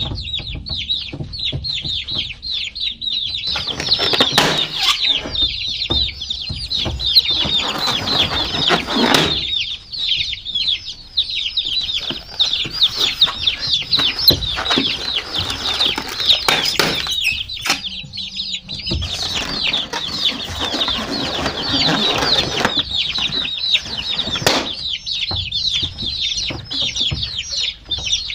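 A group of baby chicks peeping continuously, many short high chirps overlapping. Several stretches of rustling, scuffling noise come and go, loudest about a third of the way in and again past the middle.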